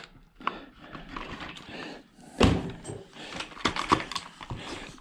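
Small clicks and knocks of metal and plastic ice maker parts being handled during a teardown, with one louder knock about two and a half seconds in.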